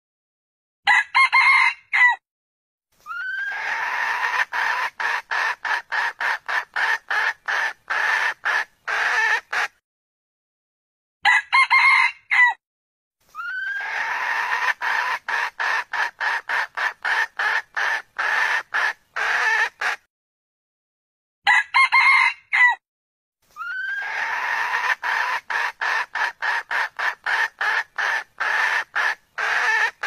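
Red junglefowl calls repeating three times over: a short crow of about a second, then a long run of rapid clucks, about three a second, for six seconds or so.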